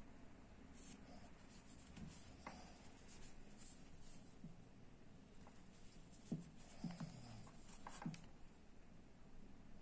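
Faint scratching and rustling of cotton twine being drawn through crochet stitches with a tapestry needle, weaving in the yarn end to hide it. A few soft ticks come in the second half.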